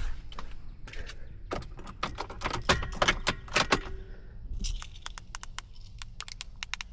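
Series of sharp metallic clicks and jingling as a 12 V remote battery disconnect solenoid is switched by its remote to check that it clicks.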